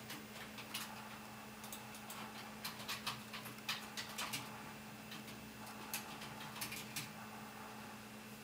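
Light, irregular ticks of a fingertip tapping the glass touchscreen of a Nokia E7 phone, bunched together about halfway through, over a steady low hum.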